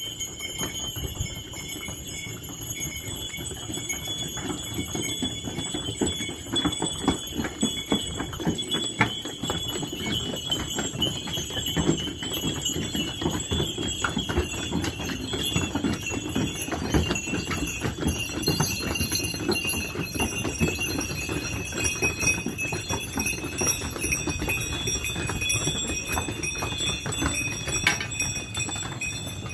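A string of saddled donkeys walking on stone paving, many hooves clip-clopping unevenly and continuously, with bells on their tack jingling and ringing steadily.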